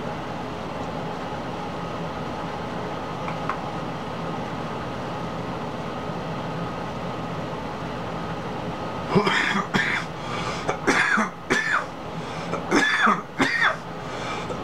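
A man coughing in a series of harsh bursts after drawing on a marijuana joint, beginning about nine seconds in, over a steady room hum.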